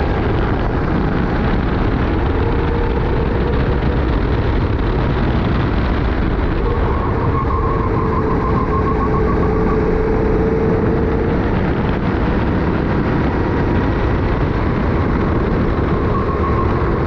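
Sodi kart's engine running under racing load, heard through a helmet chin-mounted camera with heavy wind rush over the microphone; the engine note rises and falls slightly through the corners.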